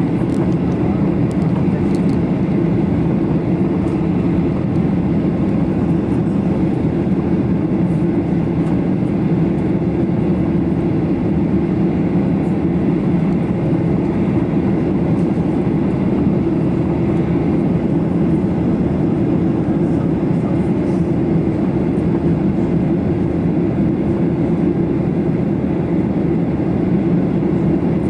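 Steady cabin noise of a Boeing 737-800 jet airliner in flight: an even, loud drone of the engines and rushing air, heard inside the cabin by the window seat over the wing.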